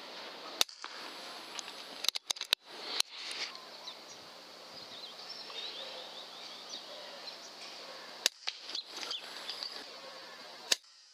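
A .22 pre-charged air rifle firing: several sharp cracks. One comes about half a second in, a cluster follows around two to three seconds in, more come around eight seconds and one just before the end. Under them is a steady outdoor hiss with faint small-bird chirps.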